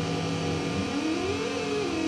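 MFOS Weird Sound Generator analog drone synth droning in layered tones. A low tone drops out about two-thirds of a second in, and then a higher tone sweeps up in pitch and falls back.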